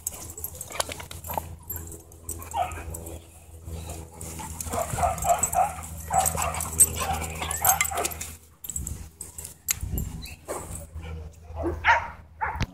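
Two dogs play-wrestling, barking and making excited play noises off and on.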